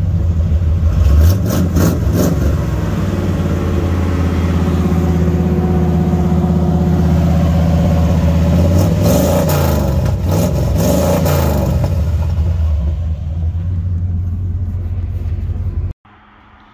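Old dually pickup truck under way, its engine and exhaust running loud with tyre noise; the engine pitch swings up and down a few times past the middle. Near the end the sound cuts off abruptly to a much quieter steady hiss.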